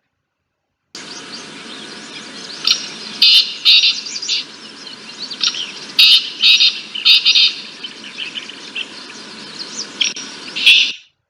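A bird calling repeatedly in a field recording: clusters of short, quick chirps over a steady background hiss, loudest near the middle and just before it cuts off at the end.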